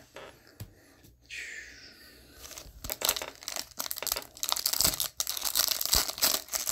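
A foil-wrapped Panini Prizm trading-card pack being torn open by hand. The wrapper crackles and crinkles densely, starting about two and a half seconds in, after a quieter stretch of soft handling.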